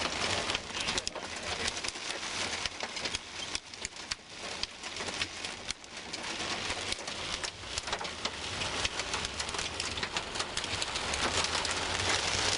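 Heavy rain pelting the car's windshield and roof, heard from inside the cabin: a dense patter of sharp drop impacts over a steady low rumble from the vehicle.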